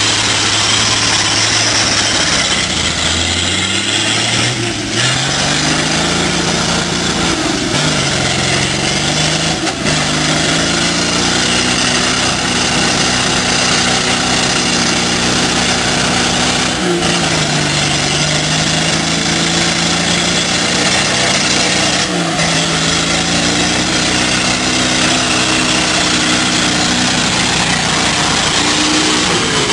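Off-road 4x4 engine working hard through mud, its revs climbing and then dropping sharply four times, about 4, 10, 17 and 22 seconds in, over a steady hiss of tyres and mud.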